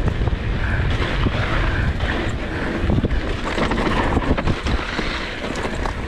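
Polygon Xquareone DH9 downhill mountain bike descending a dirt singletrack at speed: tyres rolling on the dirt with frequent rattles and knocks from the bike over bumps, under steady wind rushing over the microphone.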